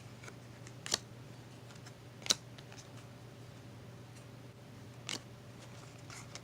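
Trading cards being handled and flipped through, giving three sharp card clicks a second or more apart and a few softer ticks, over a faint steady low hum.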